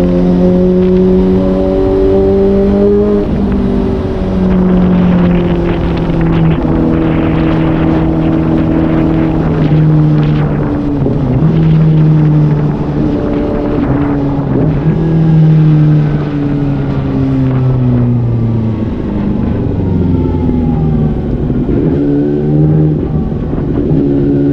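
Suzuki GSR750's inline-four engine under way, revs climbing and then dropping at each of several gear changes. About two thirds in the revs fall away for a few seconds as the bike slows, then climb again through the gears near the end, with a steady rush of wind and road noise throughout.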